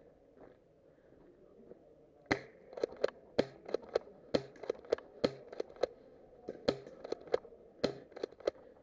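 Airsoft guns firing: about two dozen sharp cracks in an irregular string, starting about two seconds in.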